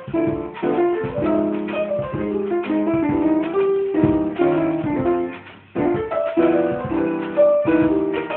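Instrumental tune: a melody of plucked or keyboard notes over chords, with a short break about two-thirds of the way through before the playing starts again.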